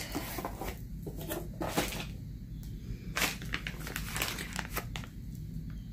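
Clear plastic packaging crinkling and rustling as it is handled, with scattered short crackles and taps over a low steady hum.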